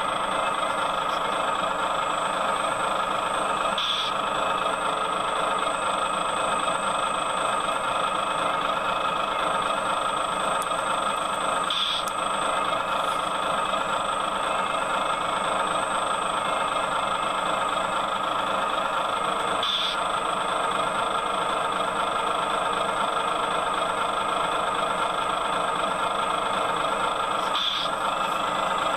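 Excavator diesel engine running steadily, with a faint short tick about every eight seconds.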